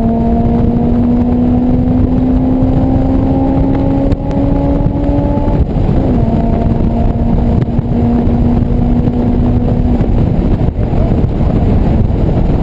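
Honda S2000's four-cylinder engine heard from inside the open cockpit, its pitch climbing steadily as it pulls up through the revs, then dropping for an upshift about five and a half seconds in and climbing again until the engine note falls away about ten seconds in. Heavy wind rush over the open-top car sits under it all the way.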